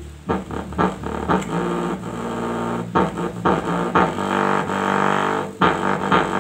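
Bass-boosted electronic song played loud through a bare 8-inch woofer driven by a TDA2050 amplifier board (swapped in for a TDA2030) and fed through a low-pass filter: deep sustained bass notes with drum hits about twice a second.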